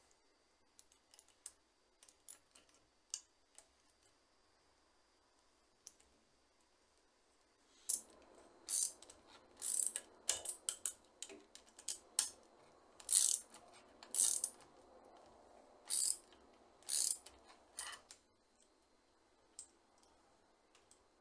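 Metal bicycle pedal parts being handled and fitted onto the pedal spindle at the crank: a few faint clicks, then several seconds of short, sharp metallic clicks and rasps about once a second.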